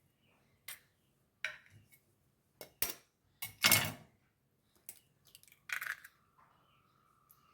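Eggs being knocked against a bowl and cracked open: a series of sharp clicks and knocks of shell on the bowl, the loudest a short clatter about three and a half seconds in.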